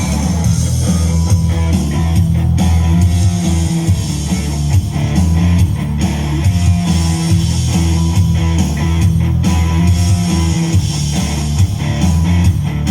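Loud music with guitar over a strong, deep bass line and a steady beat.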